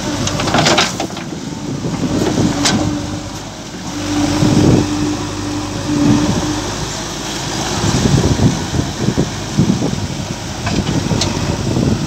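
JCB 3DX backhoe loader's diesel engine running as the machine drives through a shallow river, with water rushing and splashing around its wheels. A steady low engine note comes and goes.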